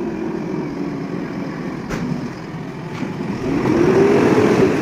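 JCB 3DX backhoe loader's diesel engine running, revving up and easing back down about three and a half seconds in.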